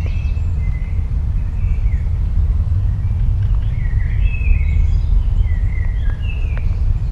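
Countryside ambience: a loud, steady low rumble throughout, with birds chirping on and off above it, busiest from about four seconds in.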